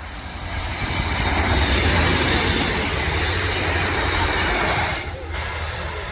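Train passing close by: a rumble of wheels on rail and engine that builds over the first second or two, holds, then falls away about five seconds in.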